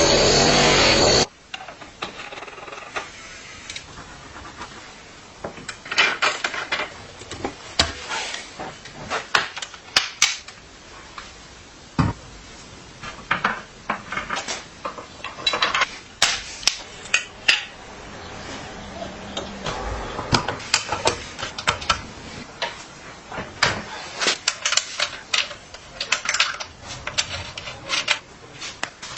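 Irregular metallic clicks, taps and clinks of hand tools and bicycle parts being handled, coming in scattered clusters. This follows a loud steady noise that cuts off suddenly about a second in.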